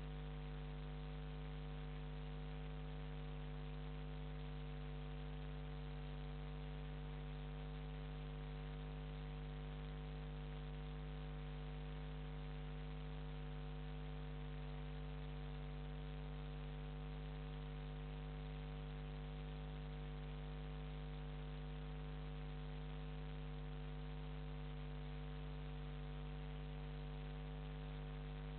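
Steady electrical mains hum: a low buzz of several unchanging tones over a faint hiss, with no rise or fall in level.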